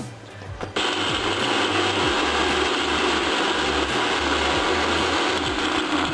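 Electric mixer-grinder grinding dry biscuits: the motor starts suddenly about a second in and runs at a steady whine while the biscuit pieces are chopped to powder, stopping right at the end. A few light clicks come before it starts.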